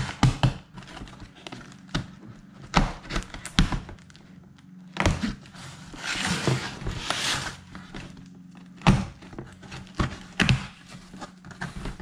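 Cardboard box being opened and handled on a wooden workbench: a series of knocks and thunks as the box and its flaps are moved, with a longer scraping rustle of cardboard about six seconds in.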